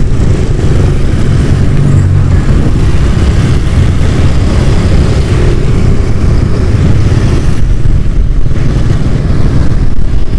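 Motorcycles and scooters running along together in a convoy, heard from among the riders: a loud, steady low rumble of engines with no single event standing out.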